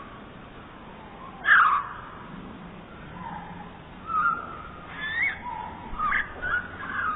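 Bird calls slowed down, lower and drawn out: a single loud call about a second and a half in, then from about four seconds a run of short whistled notes that swoop up and down.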